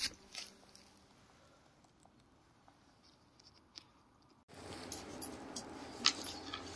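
Faint crackle of dry leaves and twigs underfoot, with a few scattered clicks. About four and a half seconds in, the sound cuts abruptly to louder rustling and handling noise with frequent clicks.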